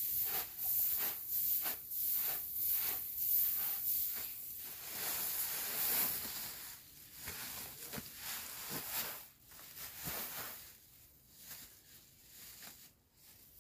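Loose rice grain being scooped by hand into woven plastic sacks: a hissing rustle of pouring grain, about two scoops a second for the first few seconds, then quieter rustling of grain and sacks.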